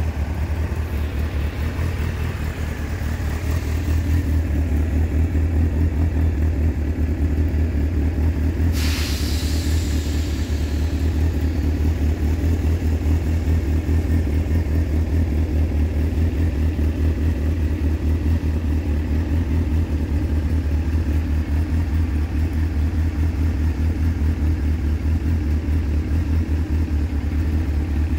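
Honda CBF600N's inline-four engine idling steadily. A brief hiss falling in pitch passes over it about nine seconds in.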